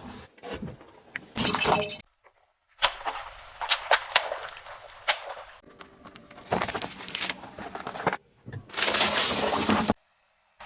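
Objects crushed under a car's tyres: a series of crunching and breaking bursts with several sharp cracks, cut together from separate takes.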